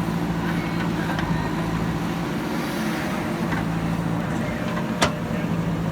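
Diesel engine of heavy earthmoving machinery running steadily at an even speed, with one sharp knock about five seconds in.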